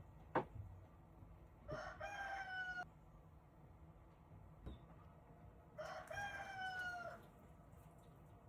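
A rooster crowing twice, each crow a little over a second long and dipping in pitch at the end. A sharp click about half a second in.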